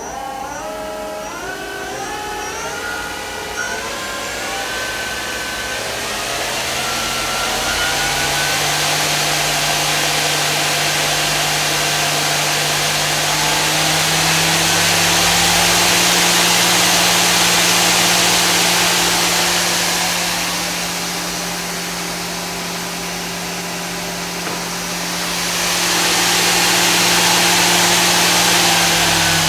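Doosan Lynx 300 CNC lathe spindle running up in steps with a rising whine, then running steadily at speed under a loud rushing hiss that eases and swells again. The whine starts to drop right at the end as the spindle slows.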